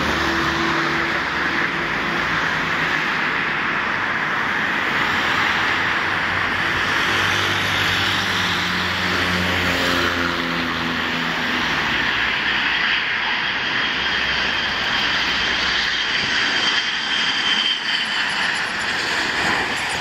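Boeing 737-200 Advanced's Pratt & Whitney JT8D turbofans on landing approach: a loud, steady jet noise whose low tones slide down in pitch as the airliner passes, with a thin whine near the end.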